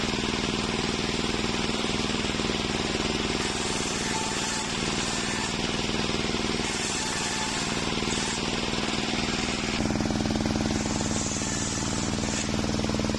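Homemade table circular saw running and cutting waru (sea hibiscus) wood: a steady motor hum under the hiss of the spinning blade. The hum gets stronger and the hiss changes about ten seconds in.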